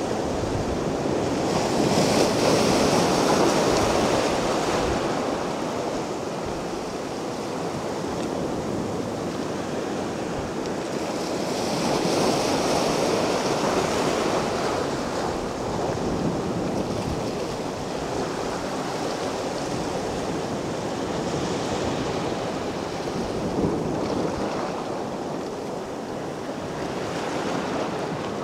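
Mediterranean sea waves breaking on a beach: a steady wash of surf that swells into a louder break about every ten seconds, three times, with the hiss of water running back between them.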